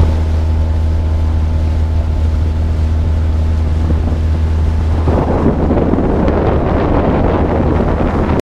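Tohatsu 20 hp outboard motor running steadily at speed on an inflatable boat, a steady low hum. About five seconds in, rushing wind and water noise swells over the engine, then the sound cuts off just before the end.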